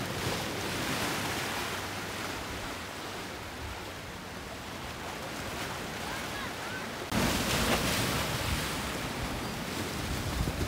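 Rough, choppy inlet water rushing and splashing, with wind rumbling on the microphone. About seven seconds in it cuts suddenly to louder surf washing and splashing against jetty rocks.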